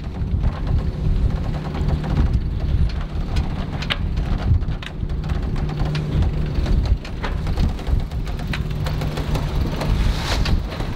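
Strong wind buffeting the microphone on a sailboat's deck, a heavy rumble with scattered clicks and knocks from the rigging. Near the end come sharper ratcheting clicks as a deck winch is cranked.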